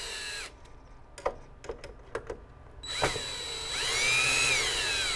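Cordless drill-driver slowly backing screws out of the miner's metal case. The motor stops about half a second in, a few light clicks follow, then it runs again for a couple of seconds with its whine rising and falling in pitch.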